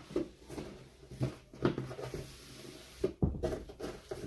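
Irregular knocks and clinks of steel server-rack parts being handled and set down, with a heavier thump about three seconds in.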